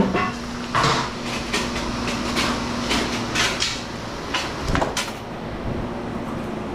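Irregular metal clanks and knocks of scrap aluminum pieces being handled, over a steady low hum that fades out about halfway through.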